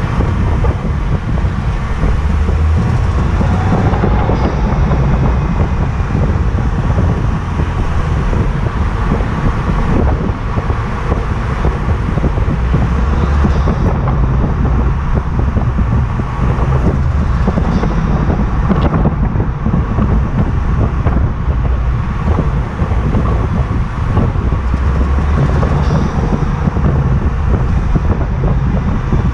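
BMW 135i's N55 turbocharged straight-six running and pulling under acceleration, with a ticking noise that comes in on acceleration. The rumble swells and eases as the throttle is applied and lifted.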